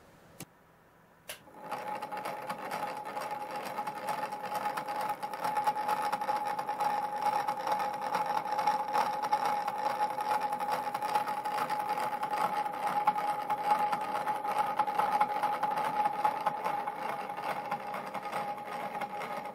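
Small electric motor driving a train of 3D-printed plastic gears on steel shafts in pillow-block bearings. After a click about a second in, it runs as a steady whir with a constant whine and a fine rattle from the meshing teeth.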